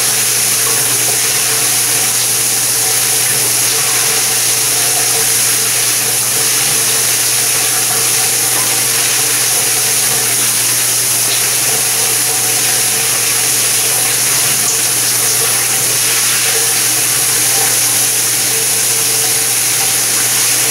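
High-flow, high-pressure shower head spraying water steadily, a loud even hiss with a steady low hum beneath it.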